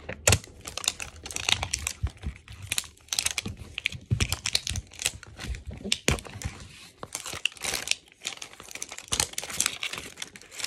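Crinkly plastic wrapping being peeled and torn off a toy's packaging, an irregular run of crackles and rustles.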